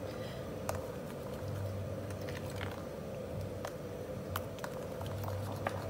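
A hand mixing a thick durian batter in a glass bowl: irregular small clicks and soft wet squelches, over a faint steady hum.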